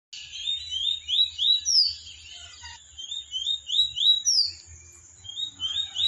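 A songbird singing in short phrases of quick rising whistled notes, each phrase closing with a higher falling note, with brief pauses between phrases. A faint low hum runs underneath.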